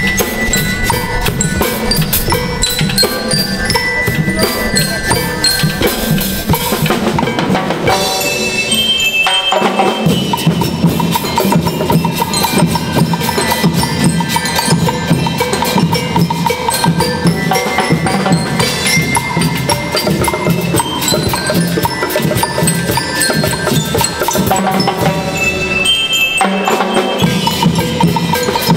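School rhythm band playing: bell lyres ringing out the melody over a drum kit and marching snare and tom drums. The low drums drop out briefly twice.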